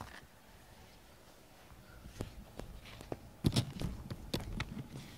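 Close-up rustling and soft knocks of a cat being stroked and brushed by hand right at the microphone. The scattered clicks and thumps start about two seconds in, with a louder cluster a little past the middle.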